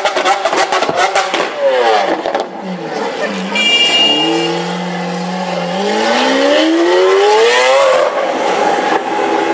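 Lamborghini Aventador's V12 crackling and popping on the overrun, then the revs drop, hold low, and climb steadily as the car accelerates away in a tunnel.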